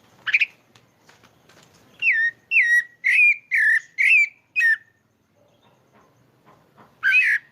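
Pale-breasted thrush (sabiá-pardo) singing: a short note, then a run of six clear whistled notes that each slide down to about the same pitch, and another phrase near the end.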